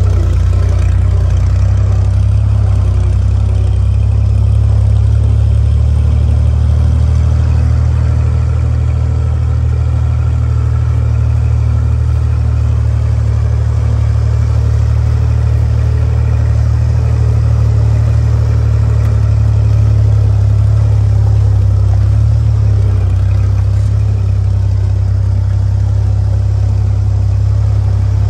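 1944 Willys Jeep's four-cylinder Go Devil flathead engine running at a steady low pitch as the jeep drives slowly over a dirt trail.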